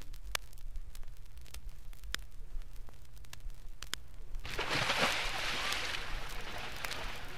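Vinyl LP playback noise: a light crackle with scattered sharp clicks over a low hum, then a broad hiss rises about four and a half seconds in.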